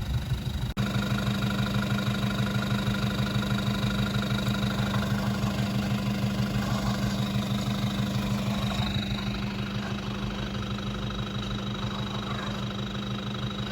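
Toyota Hilux engine idling steadily with an even, rapid throb. It eases off slightly a little after halfway.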